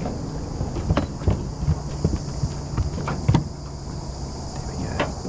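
Irregular knocks and thumps as a landing net holding a freshly caught fish is brought into a small aluminium boat and set down on the deck, the net frame and handle bumping the hull, the loudest knock a little past three seconds in. A steady high insect buzz runs underneath.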